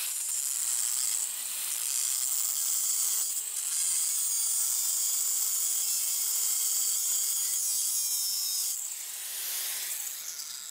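Angle grinder grinding along the welded seam of a transformer's metal casing: a steady high-pitched hiss with a couple of short dips, easing off near the end.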